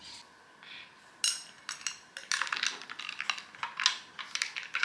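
A quick, irregular run of light clicks and clinks of small hard objects, starting about a second in and growing busier from about two seconds on.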